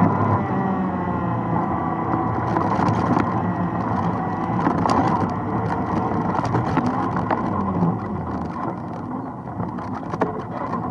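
ATV engine running steadily while riding a forest trail, with scattered clicks and knocks from the bumpy ground; the engine eases off and gets quieter about eight seconds in.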